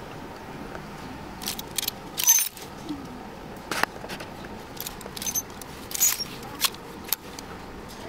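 Clothes hangers clicking and rattling on a metal clothing rack as garments are pushed along it: a string of sharp clicks and short jangles over a steady store hum.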